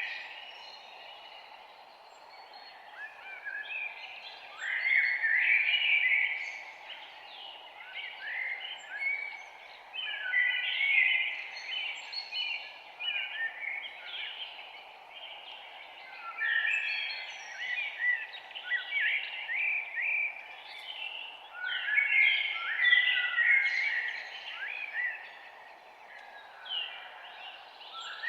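A dense chorus of high chirping animal calls, swelling and fading in clusters every few seconds, over a steady low hiss.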